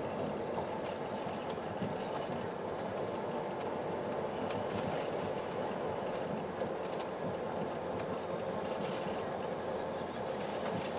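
Steady rumble of a car driving along, with road and tyre noise.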